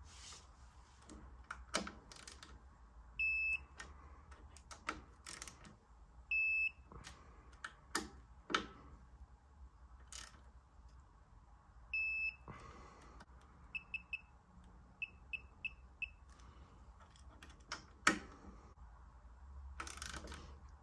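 Topeak D-Torq digital torque wrench, set to 3 Nm, beeping as stem bolts are tightened: three single longer beeps, then two quick runs of short beeps about two-thirds of the way through. Scattered sharp clicks and taps of the ratchet head on the bolts run throughout, the loudest a click near the end.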